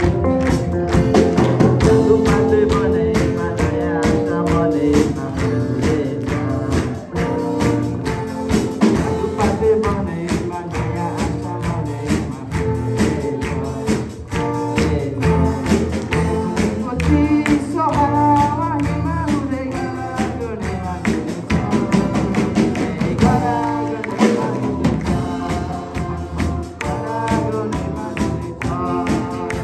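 Live band playing a song: electric and acoustic guitars, bass guitar and drums, with regular cymbal or tambourine-like hits.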